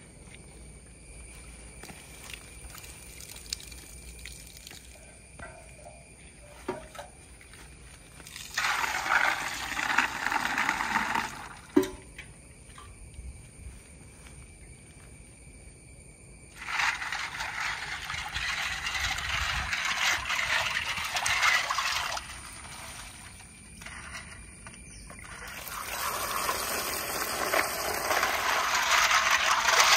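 Water poured from a metal pot into a steel bowl of snails, splashing in three long spells, each louder than the quiet stretch before it, to rinse them. There is a sharp metallic clink between the first and second pours, and a few faint clicks before the first.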